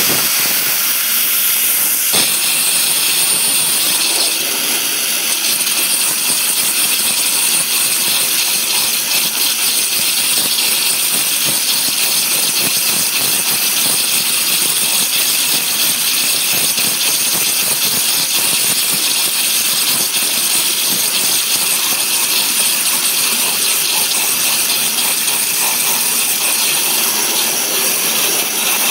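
Water jet cutter's high-pressure jet cutting through 20 mm Corten steel plate: a loud, steady high-pitched hiss.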